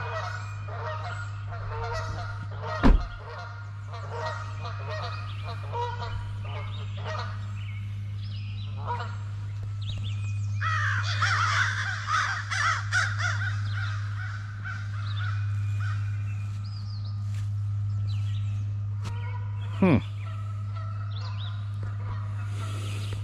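A flock of geese honking, many calls overlapping, swelling into a dense, loud burst of honking about ten seconds in, over a steady low hum. A sharp knock comes about three seconds in, and a quick falling swoop about twenty seconds in.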